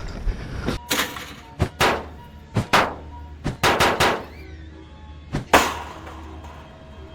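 A string of sharp gunshot-like bangs, some in quick pairs, the loudest about five and a half seconds in, each trailing off with a short ring. Faint music plays underneath.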